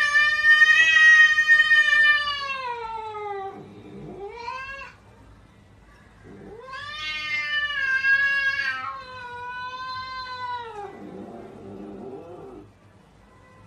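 Silver tabby cat yowling in long, drawn-out calls: a long yowl that falls in pitch as it ends, a short rising cry, a second long yowl, then a few lower, quieter cries near the end.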